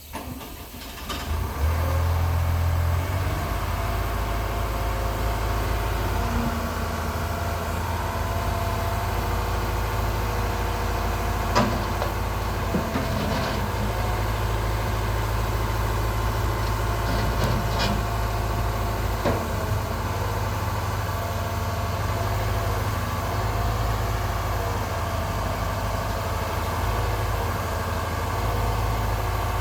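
Diesel engine of a 1994 Atlas 1304 wheeled excavator running a little harder for the first few seconds, then settling to a steady idle. A few sharp knocks come around the middle.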